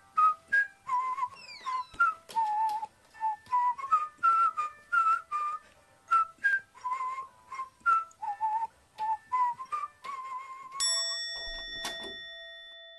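Background music: a whistled melody of short, bouncy notes. About eleven seconds in it ends on a long held tone that slowly fades.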